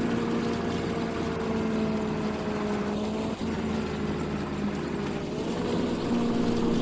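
Combine harvester running steadily while harvesting wheat, a loud continuous engine and machinery drone. Its pitch sags slightly around the middle and picks back up near the end.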